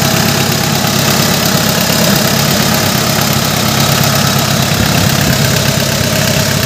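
Mitsubishi 4D56 four-cylinder diesel engine, freshly top-overhauled, idling steadily.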